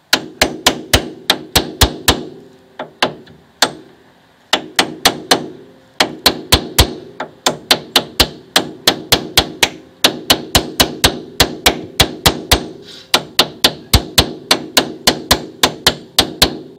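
Hammer striking an old wheel bearing used as a driver, tapping a new rear wheel bearing into a Mercedes hub carrier. Runs of sharp metal-on-metal blows, about four a second, broken by short pauses, each with a brief metallic ring.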